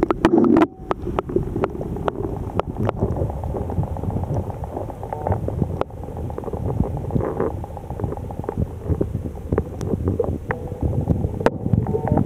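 Muffled low rumble of river water moving over a camera held underwater, with scattered sharp clicks and knocks.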